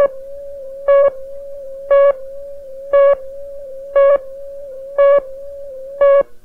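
Countdown leader tone on a videotape: a steady tone with a louder beep once a second on each count, seven beeps in all. The tone cuts off near the end.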